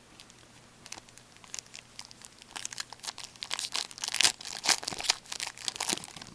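Crinkling and tearing of a hockey card pack's wrapper being ripped open by hand, a flurry of irregular crackles that builds and is thickest in the second half.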